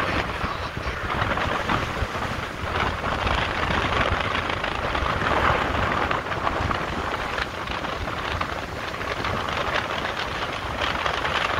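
Strong wind buffeting the microphone in a continuous low rumble that rises and falls, over the wash of waves breaking on the shore.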